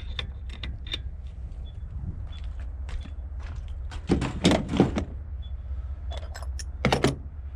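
Pieces of scrap metal clinking and clattering as they are handled and dropped, with a cluster of sharp knocks about four to five seconds in and another around seven seconds.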